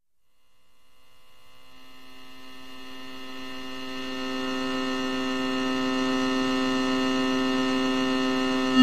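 Two-oscillator synthesizer holding one steady drone note, rich in overtones, swelling slowly up from silence over the first few seconds and then sustained.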